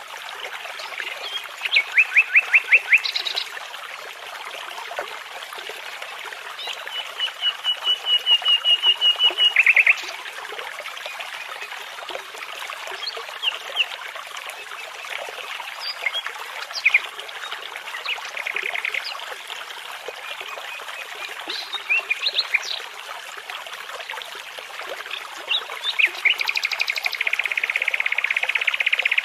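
Nightingale singing in separate phrases of rapid repeated notes and trills, with pauses between phrases, over the steady rush of a babbling brook.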